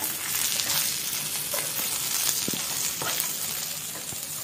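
Garlic butter sizzling in a non-stick frying pan as fried prawns are stirred through it with a spatula; a steady frying hiss with a few faint scrapes.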